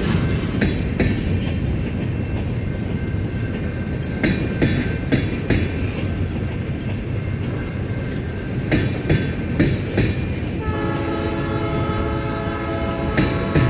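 Freight train rolling by with a steady rumble and wheels clacking over rail joints. About three quarters of the way in, a diesel locomotive's air horn starts a long blast that is still sounding at the end.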